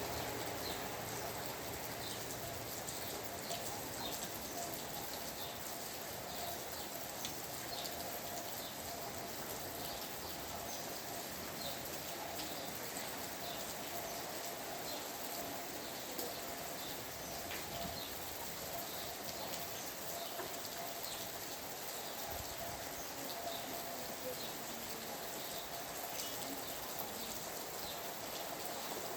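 Steady rain falling, with birds chirping now and then through it.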